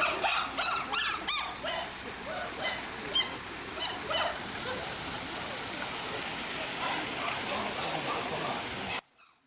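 Chimpanzees calling: a rapid run of hoots rising into high screams in the first second or two, then scattered calls over a steady rushing noise, all cut off abruptly about nine seconds in.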